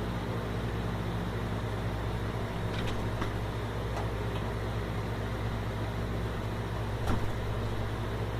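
Steady low hum with a faint hiss, broken by a few faint clicks and a soft knock about seven seconds in.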